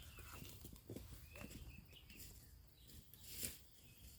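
Near silence: faint outdoor ambience with a few brief, faint bird chirps and one soft knock about three and a half seconds in.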